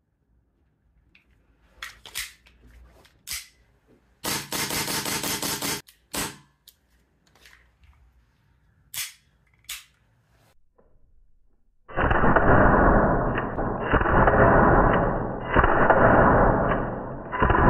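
Sharp metallic clicks from an EMG TTI Pit Viper gas blowback airsoft pistol being handled, with a dense rattling burst of about a second and a half a few seconds in and several more single clicks after it. Background music with a percussive beat comes in about two-thirds of the way through and is the loudest sound from then on.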